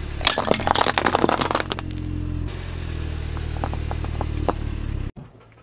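A car tyre crushing a ceramic jack-o'-lantern ornament: a rapid run of cracks and crunches over the first two seconds as it shatters, over the car's low steady rumble. Later a few sharp snaps as the tyre rolls over sticks of sidewalk chalk.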